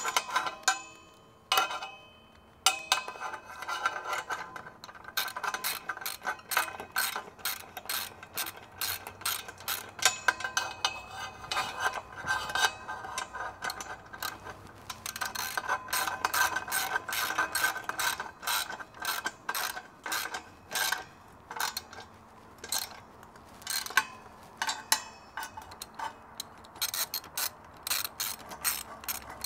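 Socket ratchet wrench clicking in long runs of quick, even clicks while a bolt is turned, with a short pause about two seconds in.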